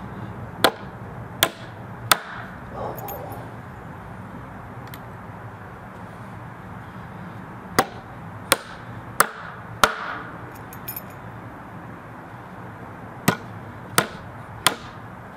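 Martinez M1 15 oz titanium framing hammer driving a nail into a wooden beam: three sharp blows, a pause, four more, and after another pause three more, the blows in each set well under a second apart. A steady low hum lies underneath.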